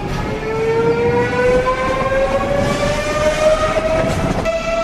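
Siemens Velaro high-speed electric train (Eurostar e320) pulling away, its traction motors whining and rising steadily in pitch as it accelerates, over a rumble from the running gear. Near the end the sound switches abruptly to a steady, higher whine.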